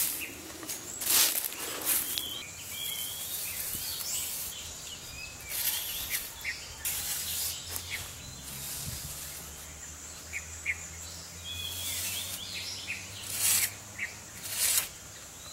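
Footsteps on dry leaf litter, then a small hand trowel scraping into bare soil a few times, with birds chirping around.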